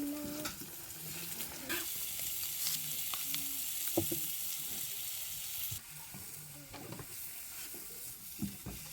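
Meat sizzling as it grills on a hot surface: a steady frying hiss that eases a little about six seconds in, with a few sharp clicks.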